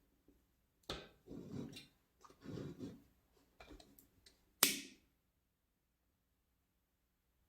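Handling noises: rubbing and scraping on a small homemade speaker box, then one sharp switch click about four and a half seconds in, after which it goes quiet.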